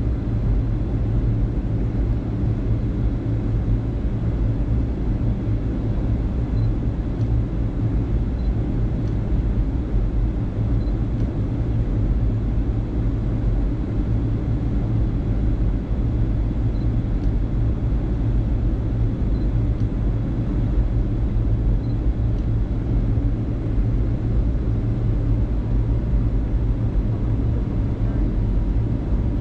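Steady, even rumble of a Boeing 757-200 airliner in flight: engine noise and airflow heard through the aircraft.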